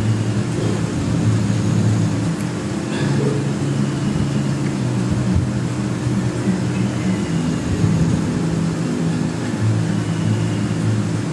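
Diced beef frying in oil in a steel wok, sizzling steadily and stirred now and then with a metal spatula, over a steady low hum.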